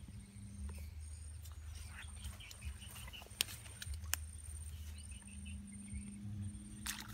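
Bare hand digging and squelching in wet mangrove mud and burrow water, with two sharp clicks about halfway through, over low wind rumble and a steady low hum.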